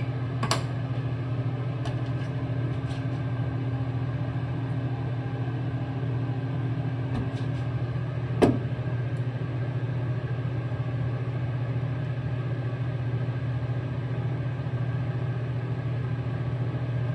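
Steady low mechanical hum, even throughout, with a sharp tap about eight and a half seconds in and a fainter click near the start.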